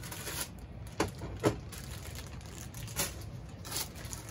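Clear plastic parts bag crinkling as it is handled, with a handful of short, sharp crackles.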